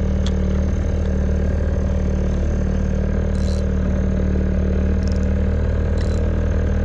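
Fishing boat's engine running steadily while trolling, a low even drone, with three short high-pitched bursts over it.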